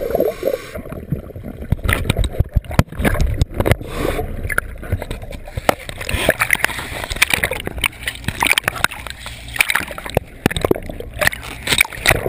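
Underwater bubbling and gurgling of a diver's exhaled air, with many irregular sharp clicks and knocks.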